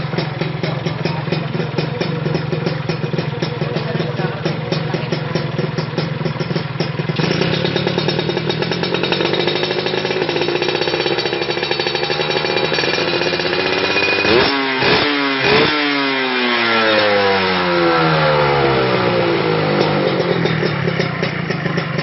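Motorcycle engine through an aftermarket RF Pipes exhaust, idling with a steady pulse, then held at higher revs from about a third of the way in. Just past the middle it is revved sharply three times in quick succession, and the revs then fall slowly back to idle.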